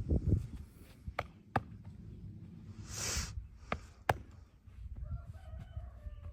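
Sharp cracks and slaps of a vigorous hand massage on the head and back: four crisp cracks spread over the clip, with dull thumps at the start and a short hiss in the middle.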